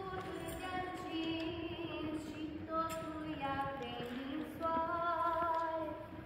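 A group of women and children singing a Romanian Christmas carol (colindă) unaccompanied, holding long notes.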